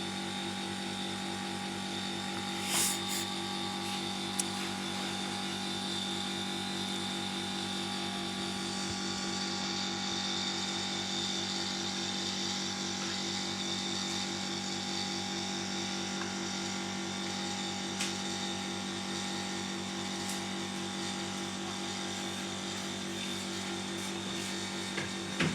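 Steady hum of a small electric motor running at an even speed, with a few faint clicks.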